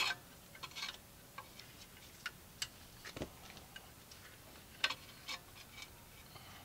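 Faint, irregular small metallic clicks and taps of needle-nose pliers against the brake caliper while a small retaining part is worked into its holes, about a dozen in all, the sharpest at the very start and another near 5 seconds.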